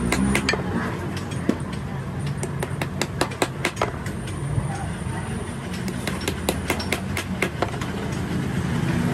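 Workshop noise: irregular sharp taps and knocks, several a second in clusters, over a steady low background rumble.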